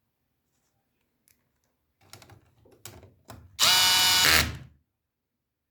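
A few light clicks, then a cordless screwdriver runs for about a second driving a screw home, its motor whine winding down at the end. The clutch is on its lowest torque setting so the screw does not strip its plastic thread.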